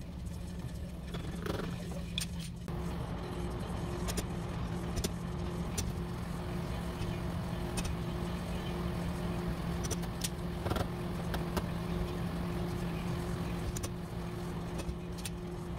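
Stud-welder dent puller working a dent in a steel car door: scattered sharp clicks and metal knocks as studs are welded on and pulled with the slide hammer, over a steady low electrical hum with a higher tone joining about three seconds in.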